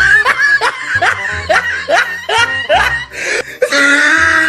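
High-pitched laughing in short rising bursts, about three a second, over music with a steady bass. Near the end a longer held note.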